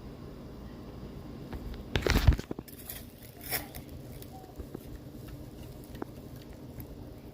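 A silty, rusty fishing reel being handled: a burst of crunching clicks and knocks about two seconds in, a shorter burst about a second later, then scattered light ticks.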